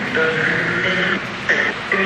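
Handheld electronic ghost-hunting device sounding a held electronic tone for about a second, then a shorter tone near the end, over steady hiss.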